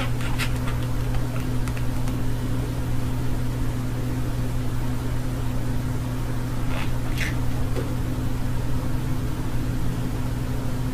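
A steady low mechanical hum runs throughout, with a couple of short high budgerigar chirps about seven seconds in.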